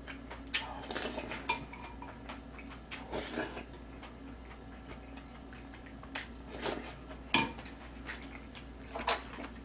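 Spoon and chopsticks clinking and scraping in a black pot of seaweed soup with rice, in scattered, irregular clinks, the sharpest ones late on.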